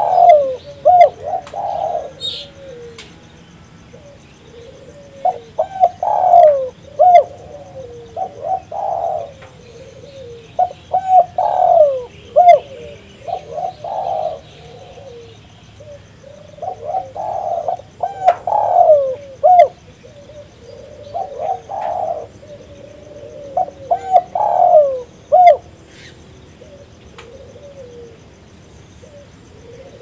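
Spotted dove cooing: short phrases of several mellow notes, repeated every two to three seconds, then stopping a few seconds before the end.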